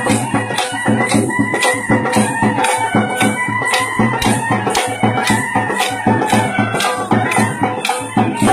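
Kolatam dance music: held melody notes over a steady, sharp clacking beat of about two and a half strikes a second, in time with wooden kolatam sticks being struck together.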